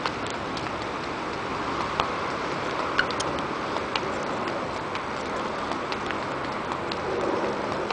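Steady city street noise with traffic, broken by occasional sharp ticks of footsteps on the stone pavement.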